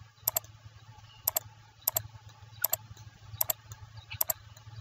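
Computer mouse clicking: about six short single clicks, one roughly every 0.7 s, over a faint low steady hum.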